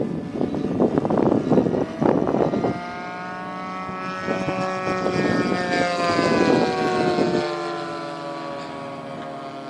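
Wind buffeting the microphone, then a radio-controlled model warbird flying past. Its engine and propeller note rises in pitch as it approaches, peaks about six seconds in, then falls away as it recedes.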